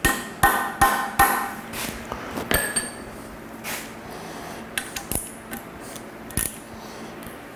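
Hammer tapping a hex (Allen) bit to seat it in an Allen-head screw-in plug in the engine block: four sharp, ringing metal strikes in the first second and a half, then one more clink about two and a half seconds in and a few lighter clinks of tools being handled.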